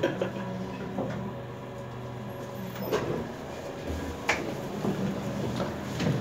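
KONE elevator car running with a steady low hum and a few sharp clicks, then the car doors sliding open near the end.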